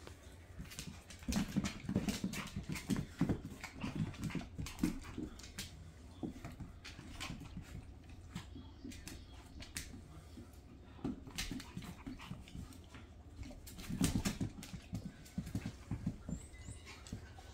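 A Staffordshire bull terrier and a Chihuahua play-fighting. Clusters of short, low dog vocal sounds come thickest in the first few seconds and again about fourteen seconds in, with claws clicking and scrabbling on a tile floor throughout.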